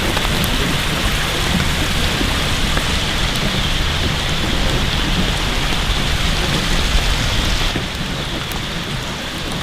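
Steady rain hiss with a heavy low rumble underneath, easing slightly near the end.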